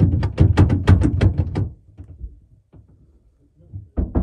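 Rapid banging, about six sharp knocks a second, that stops just under two seconds in; two more knocks come near the end.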